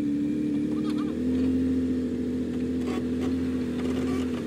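Nissan Patrol 4WD's engine working at steady revs under load as it climbs a rutted dirt track, its pitch dipping slightly about a second in.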